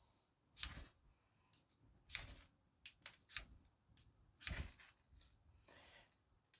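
Ferro rod of a Zippo fire starter scraped hard with its striker to throw sparks: about six quick, rasping strokes spaced irregularly a second or so apart.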